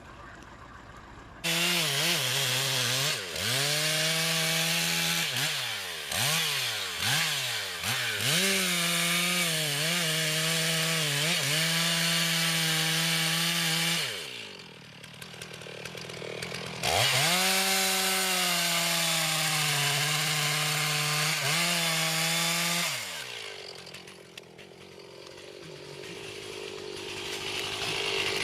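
Two-stroke chainsaw running at high revs, its pitch dipping and recovering several times as it loads in the wood. It cuts in suddenly, drops away about halfway, comes back suddenly, and fades out near the end.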